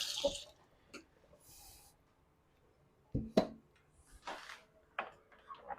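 Scattered knocks and clicks of whetstones and a straight razor being handled and set down while changing from one honing stone to the next, with a couple of short soft hisses.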